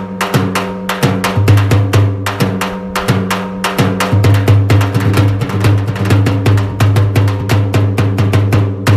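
Drum-heavy background music: a quick run of drum strikes over a steady low bass line.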